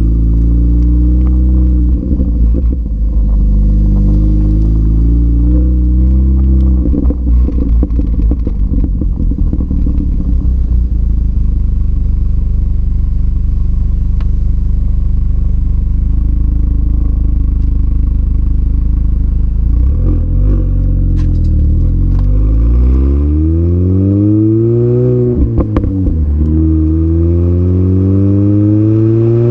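A supercharged 2005 Mini Cooper S R53 running through an Alta cat-back exhaust and Alta intake, heard close to the tailpipe. It drones steadily while cruising, with a few seconds of clatter about a quarter of the way in. Then it revs up hard under acceleration, dips briefly at a gear change, and climbs again near the end.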